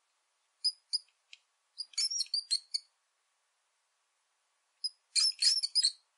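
Rat squeaking: short, high-pitched squeaks, a few single ones at first, then a quick flurry about two seconds in and another near the end.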